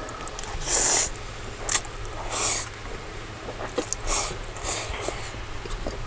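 People slurping noodles: about five short, airy slurps, with a few light clicks of chopsticks on bowls between them.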